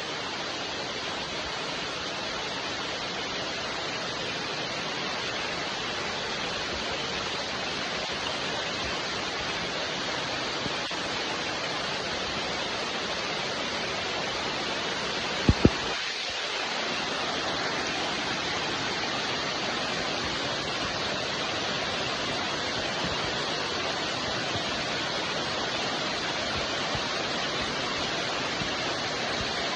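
Steady rain falling as an even hiss, with two sharp clicks close together about halfway through.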